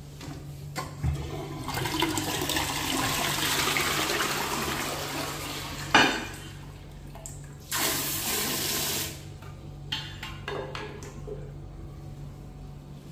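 Toilet flushing, a rush of water lasting about four seconds, followed by a sharp knock. Then a handheld bidet sprayer is triggered briefly, a short hissing jet of water for about a second and a half.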